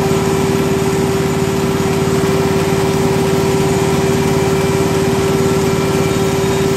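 Bucket milking machine with a 1 HP motor-driven vacuum pump running steadily: an unbroken hum with a fast, even pulsing underneath, while the cluster milks the cow.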